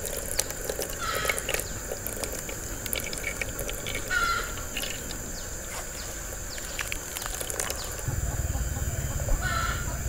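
Grated coconut squeezed by hand in a mesh sieve, with soft crackling clicks and fresh coconut milk dripping into a bowl. A bird calls three times and an insect keeps up a steady high whine; a low rumble comes in near the end.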